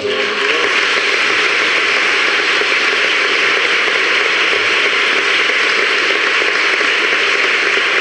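Audience applauding: dense, steady clapping that starts at once and keeps up at an even level.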